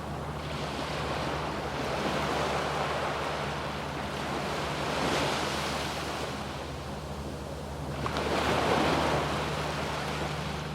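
Waves breaking and washing up on a sandy beach, the surf swelling louder about every three seconds. A faint steady low hum sits underneath.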